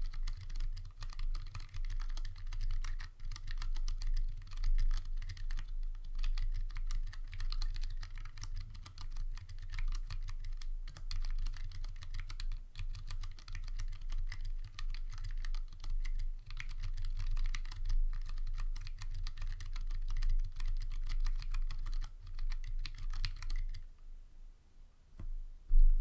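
Fast, continuous typing on a Planck 40% ortholinear mechanical keyboard with Cherry MX Clear tactile switches and blank DSA-profile keycaps: a dense, irregular run of key clacks. The typing stops about two seconds before the end, followed by one single louder knock.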